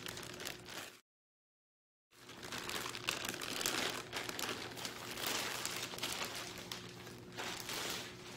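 Thin clear plastic poly bag crinkling and rustling as it is handled, pulled open and the package inside lifted out. About a second in the sound drops to dead silence for roughly a second before the rustling resumes.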